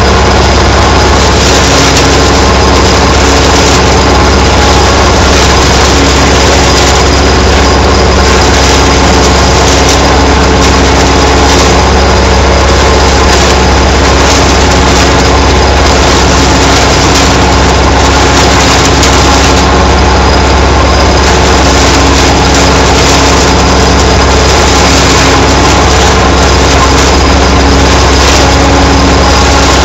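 Tractor engine running steadily under load, driving a PZ Zweegers PZ 80 S forage harvester whose rotor is chopping maize and blowing it into a trailer. The sound is loud and even, with a steady hum.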